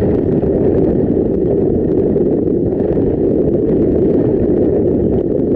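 Steady low rumble of road and wind noise from a car driving at highway speed, heard from inside the vehicle.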